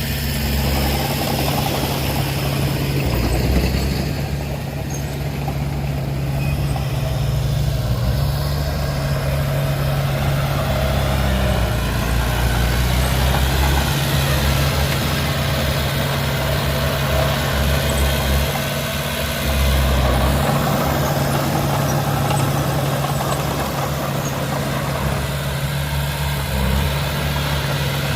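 Heavy diesel engine running steadily at low revs, its level swelling a little now and then.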